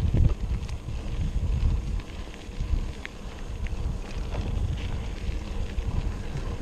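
Wind buffeting a microphone carried on a moving bicycle: an uneven low rumble that rises and falls, with a few faint ticks.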